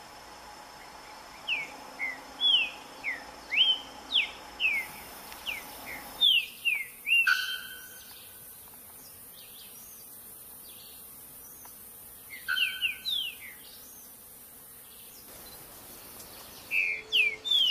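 Green-winged saltator (trinca-ferro) singing: phrases of short, clear whistled notes, each sliding up or down, in several bursts with pauses between. A faint steady insect drone runs underneath in the first few seconds.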